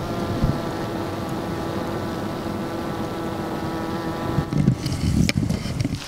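A honeybee colony in its winter cluster, humming steadily as heard close against the hive's open mesh floor; the even hum is what the beekeeper calls a nice sound from healthy bees. Near the end the hum gives way to rustling and a couple of knocks.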